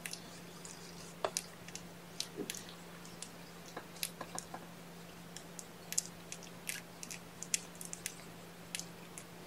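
Scattered light clicks and ticks, irregularly spaced, over a steady low hum.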